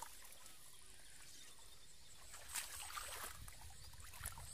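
A few short splashes and squelches in shallow muddy water in the second half, after a quiet first couple of seconds.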